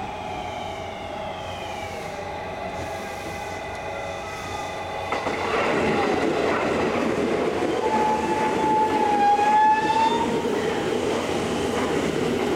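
JR West 223-series electric train braking into a station: its inverter motor whine falls steadily in pitch as it slows, then the rumble of the wheels grows louder as the cars run past close by. A high squeal, most likely from the brakes, lasts about two seconds as the train comes to a stop.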